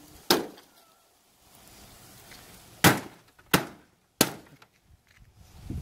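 A wooden baseball bat smashing a flat-screen TV's screen: four sharp hits with breaking glass, one about a third of a second in and three more in quick succession in the second half.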